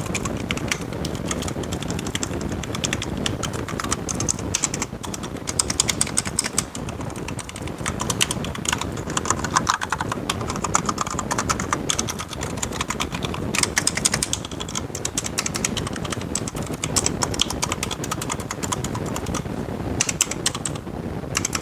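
Akko 3108RF wireless mechanical keyboard being typed on in a fast, uneven stream of keystrokes. The typing has a deep sound from the foam dampening inside the case.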